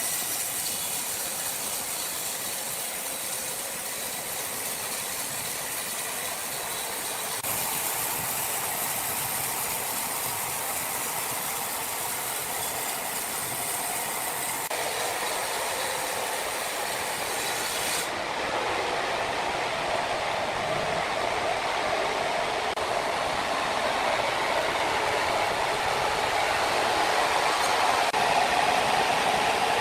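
Sawmill machinery running while sawing red oak logs: a steady, noisy mechanical sound with a hiss that changes character a few times, growing a little louder toward the end.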